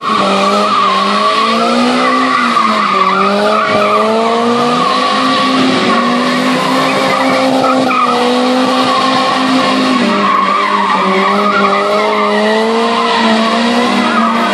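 Toyota Altezza spinning donuts, its engine held at high, steady revs that dip briefly a couple of times, with the tyres skidding on the wet slab throughout.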